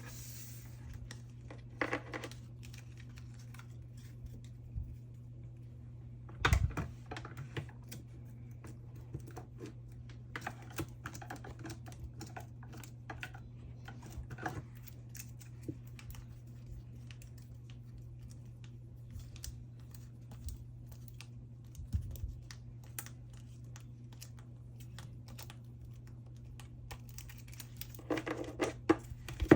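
Photocards and plastic card sleeves being handled: many small clicks and taps, with short bursts of plastic rustling and a soft thump about six seconds in, over a steady low hum.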